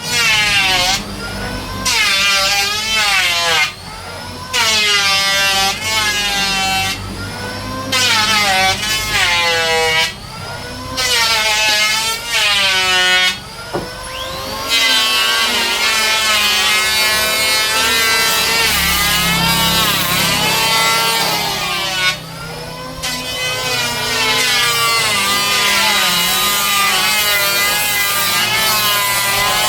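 An electric woodworking power tool cutting wood in repeated passes, its motor pitch sagging and recovering under load. Several short cuts are followed by longer continuous ones from about halfway through.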